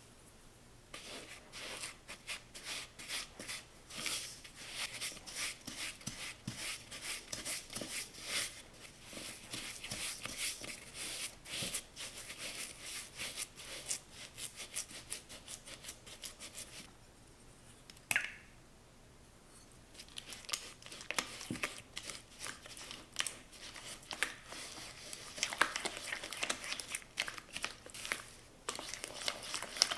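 Silicone spatula stirring and scraping butter and sugar against a plastic mixing bowl, a fast run of grainy scraping strokes. About halfway through, the stirring stops for a few seconds and there is one sharp tap. Stirring then resumes as an egg is beaten into the mixture.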